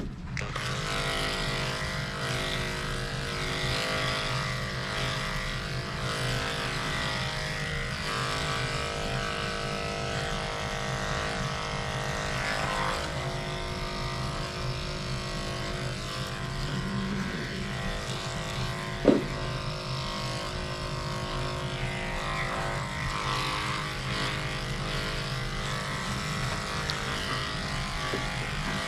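Electric dog grooming clippers with a comb attachment running steadily as they cut through a dog's coat. There is one sharp knock about two-thirds of the way through.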